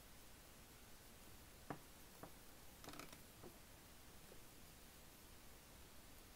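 Near silence with a handful of faint small clicks between about two and three and a half seconds in, from hands working a metal crochet hook through yarn.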